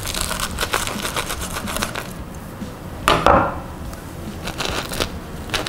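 A knife sawing through the crisp fried panko crust of a ham-and-cheese Monte Cristo sandwich on a wooden cutting board, giving a run of small crackling crunches. There is a louder crunch a little after three seconds, and more crackles as the crust breaks when the halves are pulled apart.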